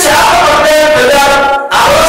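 Only speech: a man lecturing loudly and emphatically in Telugu, with a brief pause near the end.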